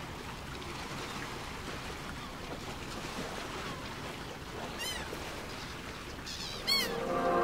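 Ocean surf washing steadily on a beach, with seagulls calling twice in the second half. Music starts just before the end.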